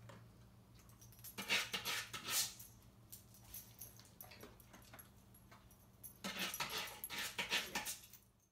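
A dog's front claws scratching rapidly on a sandpaper nail board in two bouts of quick raspy strokes, a short one about a second and a half in and a longer one near the end.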